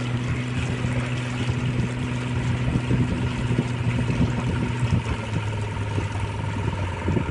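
Motorboat engine running steadily under way, with wind and water rushing past the hull. About five seconds in, the engine note drops lower as the boat eases off.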